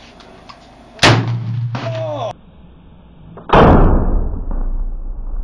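Two gunshots about two and a half seconds apart, each followed by a short echo. The second and loudest is a pump-action shotgun firing a heavy slug.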